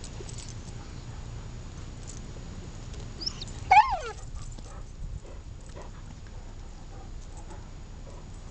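A dog gives one short, high whining yelp that falls in pitch, about four seconds in. Faint scattered clicks sound around it.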